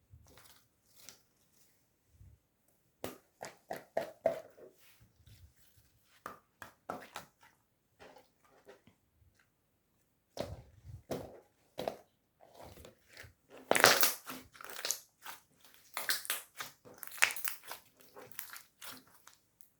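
Marbled slime being squished and stretched by hand, making irregular sticky crackles and pops, with the loudest bursts of crackling about two thirds through.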